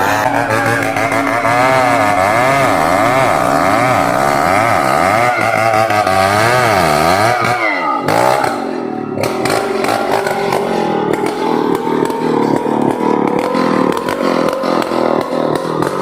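Chainsaw cutting into a merbau (ironwood) trunk, its engine note rising and falling as the chain bites into the wood. About eight seconds in the pitch dips sharply, then settles into a steadier note that climbs slowly.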